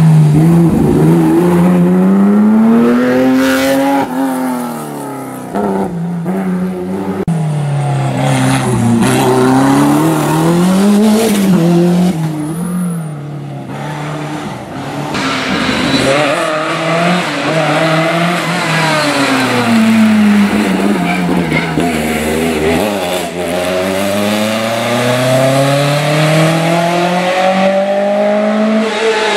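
Historic rally car engines revving hard, the pitch climbing and dropping again and again through gear changes and braking for corners as the cars race through a stage.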